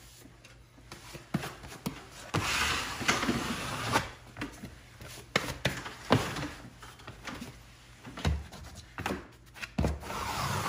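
Pasted cork wallpaper being rubbed and shifted against the wall to fit an off-plumb corner: scratchy rubbing strokes with scattered light knocks.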